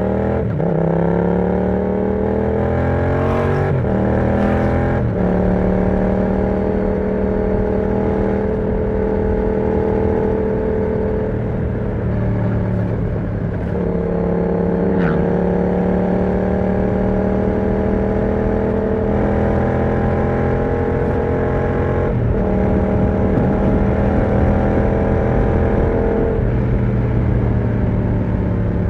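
Yamaha MT-07's 689 cc parallel-twin engine running through an aftermarket exhaust with the dB killer removed, under way. It accelerates with rising pitch and shifts up twice in the first few seconds, then holds steady revs, dipping briefly about halfway, with a couple more gear changes near the end.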